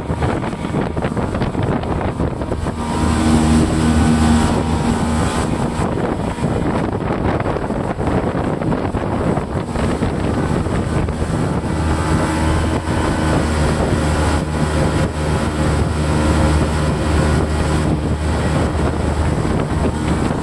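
SJX 2470 jet boat running under way, its engine drone heard from inside the cabin over a steady rush of noise. The engine gets louder about three seconds in. Wind noise buffets the microphone.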